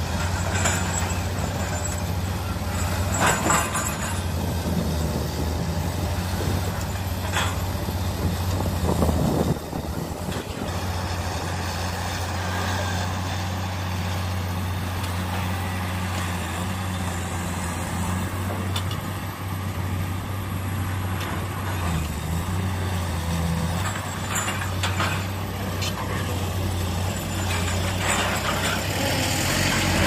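Komatsu PC200 hydraulic excavator's diesel engine running steadily as the machine swings and works, with a few short knocks from the machine about 3.5 s in and again around 8 to 10 s.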